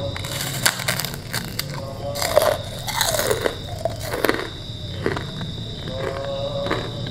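Bites into a large white kerupuk cracker and chewing, with a run of sharp, dry crunches, thickest in the first four seconds and sparser after. A steady high chirp of crickets runs underneath.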